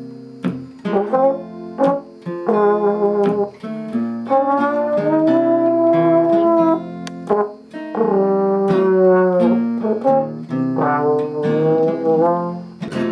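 Trombone and acoustic guitar playing together: long held trombone notes, a few gliding down, over picked and strummed guitar.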